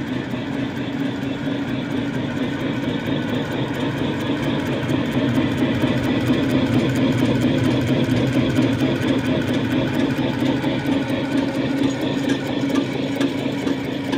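1985 Menn GW52 flat-die thread rolling machine running with no workpieces fed: a steady mechanical drone overlaid with a fast, continuous clatter, a little louder from about five seconds in.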